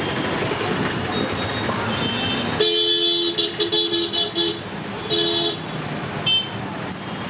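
Road traffic noise, then from about two and a half seconds in, a vehicle horn honking in several blasts of different lengths.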